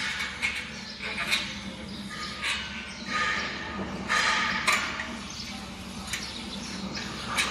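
Metal workstation frame parts being handled and fitted together: irregular knocks and scrapes as pieces are shifted to line up their bolt holes.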